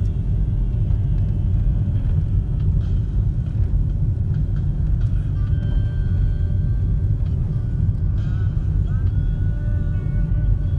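Steady low rumble of a moving taxi, engine and road noise heard from inside the cabin, with faint music playing in the background.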